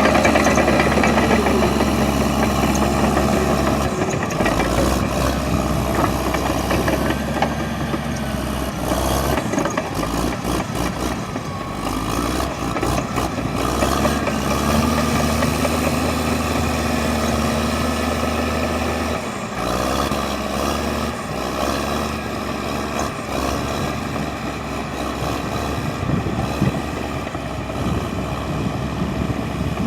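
Vehicle engines running and idling steadily, the sound changing abruptly every few seconds as one engine gives way to another.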